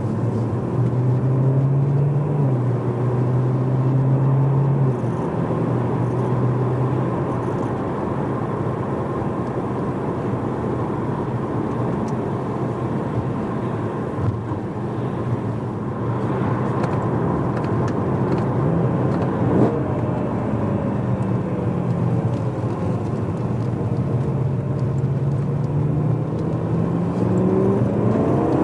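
BMW E92 M3's 4.0-litre V8 heard from inside the cabin through a decat X-pipe and stock rear box, cruising with a steady engine note over road noise. Near the end the engine note climbs as the car accelerates.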